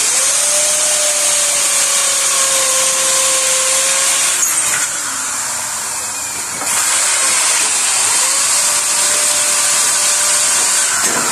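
Corded electric drill running at the edge of a window frame, drilling to mount it. The motor whine holds steady, eases off for about two seconds a little before halfway, then picks up again for a second long run.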